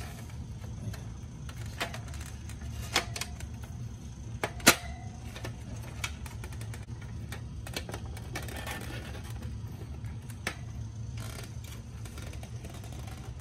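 Hard plastic parts of a small hamster travel cage clicking and snapping as they are handled and fitted together: a handful of scattered sharp clicks, the loudest about a third of the way in, over a steady low hum.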